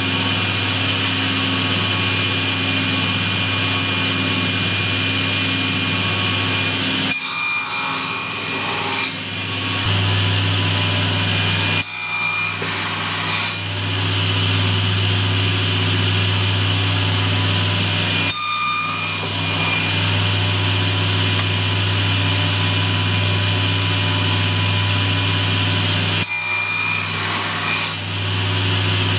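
Table saw running while box joint fingers are cut in plywood with a sliding jig. Its steady hum changes briefly four times as the jig passes the blade.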